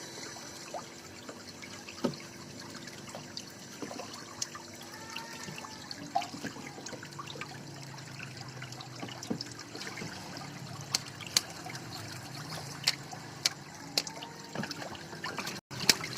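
Water trickling and dribbling in a home-built ice-block making machine, with gurgles and small clicks. A steady hum from the running refrigeration unit sits underneath, and a few sharper ticks come near the end.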